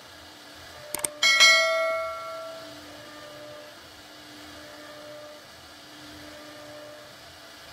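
Subscribe-button sound effect: a couple of quick mouse clicks about a second in, then a bright bell ding that rings out over about a second and a half. Under it, the CNC router's spindle hums faintly and steadily.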